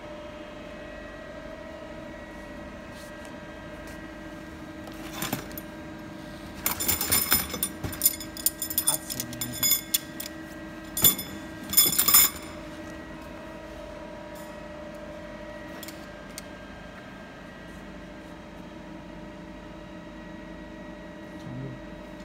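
Steady hum of an automatic hydraulic lathe running, with a few held tones. Over it, machined steel rods clatter and clink against each other with a bright metallic ring as they are handled in a cardboard box, in a burst from about five seconds in to about twelve seconds in.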